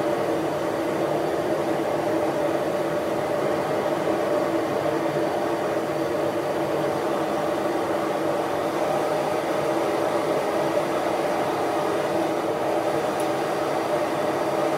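Blower-fed ribbon-burner gas forge running, its fan and burner flames making a steady rushing hum while the burners are being tuned.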